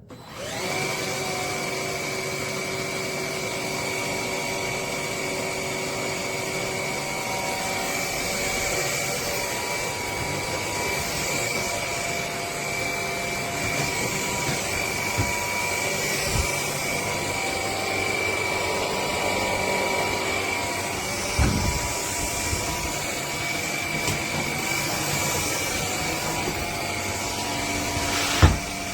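Dreame Z20 cordless stick vacuum switched on just at the start and running steadily with a high-pitched whine. A few short knocks come along the way, the loudest near the end.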